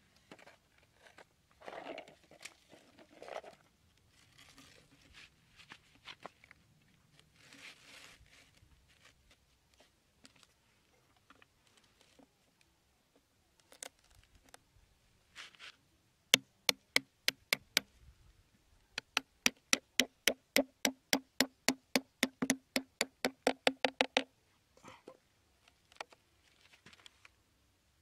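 Hands handling and scraping a plastic bowl and cardboard, with soft crunches and taps. Around the middle come two runs of sharp, evenly spaced clicks, about six a second, lasting a few seconds each.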